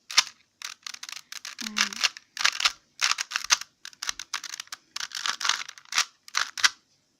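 A Rubik's cube being turned fast by hand in a timed solve: quick, irregular runs of plastic clicking and rattling as its layers twist.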